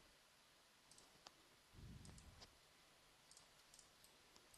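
Near silence with a few faint computer mouse clicks, scattered singly and in a small cluster, while a layer is being changed in AutoCAD.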